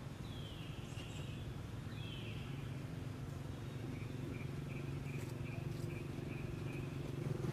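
Outdoor ambience with a low steady hum: two short high chirps falling in pitch in the first two seconds, then a run of evenly spaced high chirps, about two or three a second, from about four seconds in.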